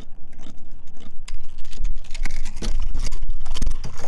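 A landed fish thrashing against a plastic kayak and its lure, a fast irregular run of knocks and slaps that grows busier after about a second, then a splash in the water alongside the kayak near the end.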